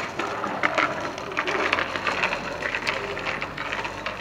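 Child's bicycle with training wheels rolling on asphalt, with a fast, irregular run of clicks and rattles.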